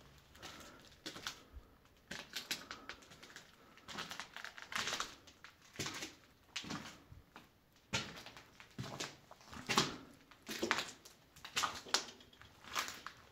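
Footsteps on a debris-strewn floor, about one step a second, each a short scraping crunch.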